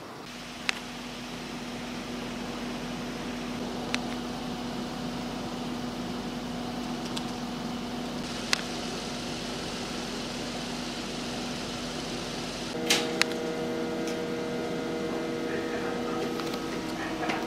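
A steady machine hum with one low steady tone and a few sharp clicks. About two-thirds of the way through, several more steady tones join in.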